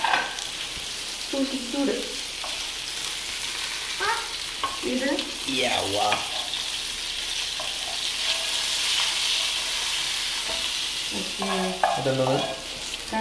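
Fish sizzling in shallow hot oil in a frying pan, a steady hiss that swells a little in the middle. The fish has been lightly fried on both sides.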